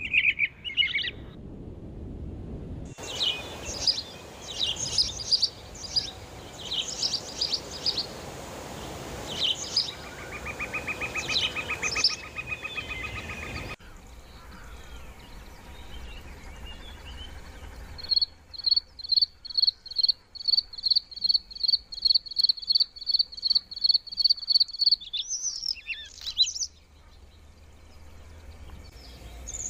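Small songbirds singing: varied chirping phrases and a short trill, then a run of about twenty evenly repeated high notes, roughly three a second, in the second half.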